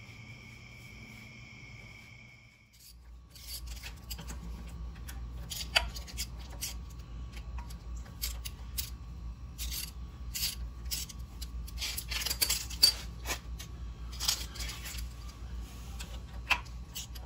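A steady high whine for the first couple of seconds cuts off. After it comes a run of small metallic clicks, rattles and rubbing from hand tools and parts being handled, over a low steady hum.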